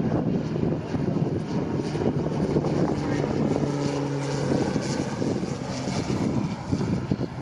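Propeller aircraft in flight, a steady drone of engine and propeller with a held low hum that is strongest in the middle.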